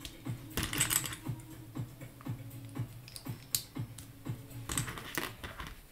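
Small plastic Lego pieces clicking and clattering as they are handled and stacked together, a string of sharp, irregular clicks.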